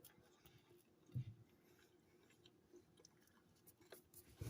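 Near silence with faint chewing as a person eats, with a short low sound about a second in.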